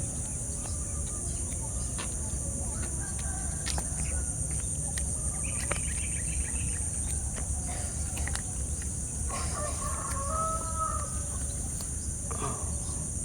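A rooster crowing once, about nine seconds in, with chickens clucking and scattered bird chirps. Behind it runs a steady high-pitched insect drone.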